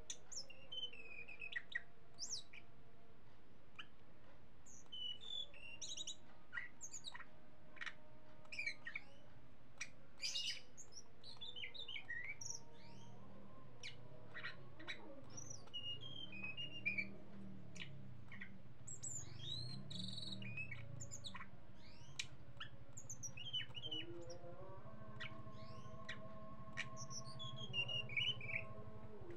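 Caged tledekan gunung singing: short varied chirps, sharp whistled notes and quick little trills, scattered through. A low hum sets in about halfway through, and faint steady tones join it near the end.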